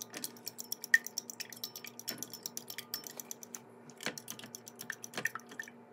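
A metal fork beating eggs in a glass bowl: quick, irregular clicks of the tines striking the glass, one sharper knock about a second in.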